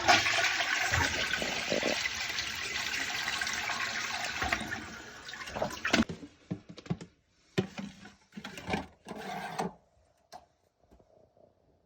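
Toilet flushing: a loud rush of water that fades out after about five seconds, followed by several short separate bursts of sound.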